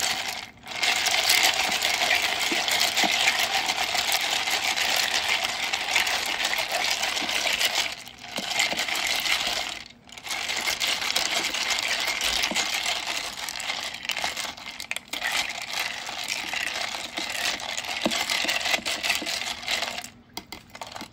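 Ice cubes clattering against the sides of a plastic tub as a long metal spoon stirs them quickly through avocado milk, in a steady run of clinks with a few short pauses; it stops near the end.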